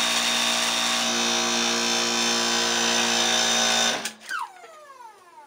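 Hydraulic press pump motor running steadily under load, raising the ram to squeeze a metal blank against a urethane pad and emboss it. About four seconds in it is switched off and winds down with a falling whine.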